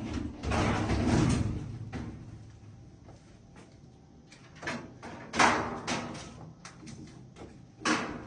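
Scraping and knocking handling sounds: a long scrape about half a second in, then a few sharp knocks and bangs.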